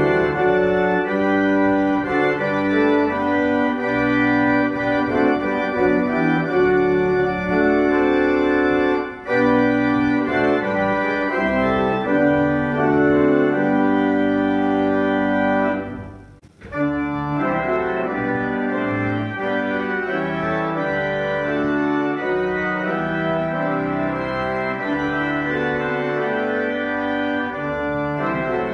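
Church organ playing a hymn tune in sustained chords. About halfway through it stops for a moment, then comes back in a little quieter.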